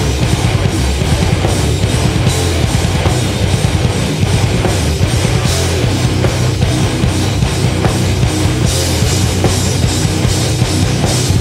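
Heavy metal band playing live: electric guitars, bass guitar and a drum kit, with cymbals washing bright over the top in the last couple of seconds.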